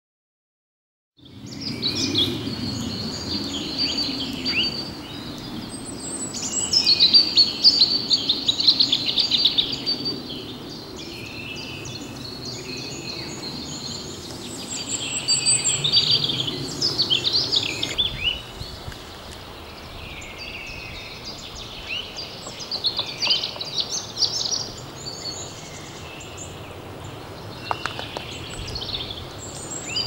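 Small birds singing and chirping, many short high calls overlapping, over a low steady background rumble; it starts about a second in after silence, and the rumble eases about halfway.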